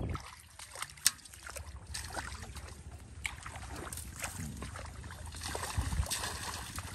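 Light splashing and sloshing in shallow, muddy field water as a hooked catfish is handled and dropped into a metal pot, with scattered sharp clicks and knocks; the sharpest click comes about a second in, and a low thud near the end.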